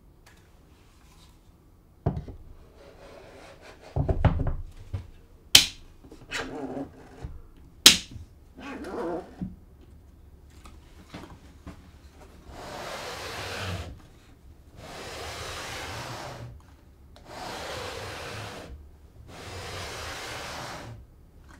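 A few sharp wooden knocks and clunks as a router in its plywood carriage is set onto a plywood jig, then four even strokes of wood sliding on wood, each about a second and a half, as the carriage is pushed back and forth along the jig's sides.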